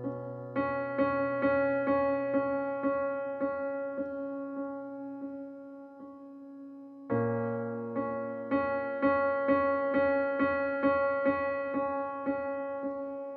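Background piano music: held chords under a steadily repeated struck note, with a new phrase starting on a low bass note about seven seconds in.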